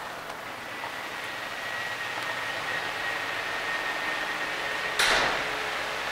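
Steady ventilation and machinery noise aboard a ship, with a faint high whistle. About five seconds in, a sudden loud hiss of air that fades within half a second.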